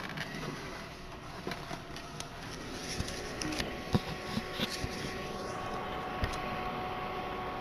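Steady mechanical hum with a few thin steady tones in it, and a handful of sharp clicks and knocks about halfway through.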